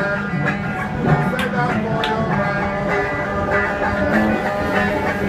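A guitar being played live inside a subway car: a steady run of picked and strummed notes.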